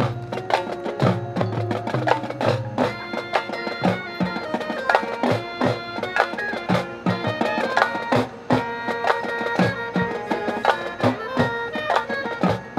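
High school marching band playing a percussion-driven passage: steady drum strokes, joined about three seconds in by held chords from the horns and saxophones.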